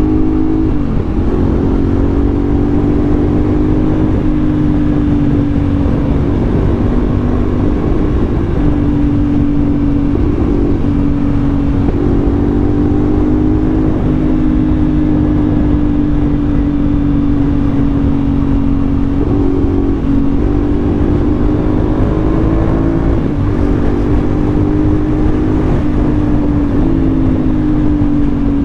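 CFMoto 450SR parallel-twin engine running under way on a ride, its pitch stepping up and down every few seconds with throttle changes, over heavy wind noise on the microphone.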